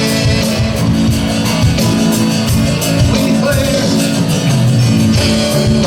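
A live praise band plays an instrumental passage of a rock-style worship song between sung lines. The drum kit keeps a steady beat under bass and guitar.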